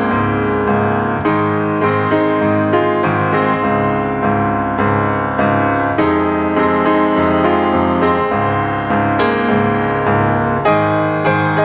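Background piano music: a steady run of struck, ringing notes.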